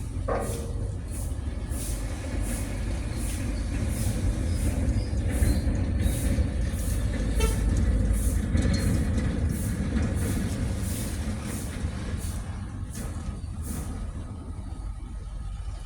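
Low rumble of a heavy vehicle engine, swelling to its loudest about halfway through and then easing off, with a faint regular high ticking about twice a second.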